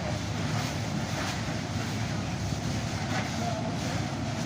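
Strong wind buffeting the microphone: a steady rumbling rush with no break.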